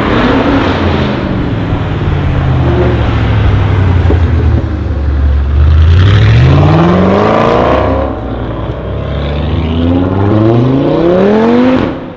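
Audi RS6 C7's twin-turbo 4.0 V8 pulling away under throttle: a low rumble at first, then the engine note rises twice as it accelerates through the gears, loudest about six to seven seconds in. It drops away suddenly at the very end.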